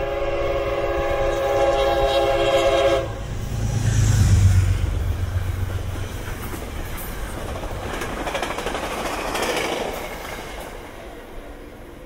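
Metro-North train horn sounding a sustained multi-note chord that cuts off about three seconds in, followed by the rumble and rattle of the train passing, fading away near the end.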